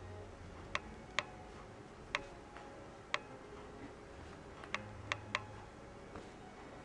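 A scattering of sharp, short clicks, about seven of them at irregular intervals, two or three coming in quick succession about five seconds in, over a quiet room background.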